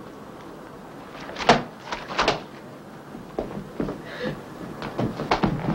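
A door being handled: two sharp knocks about a second and a half and two seconds in, then a run of lighter knocks and clunks as people go out through it.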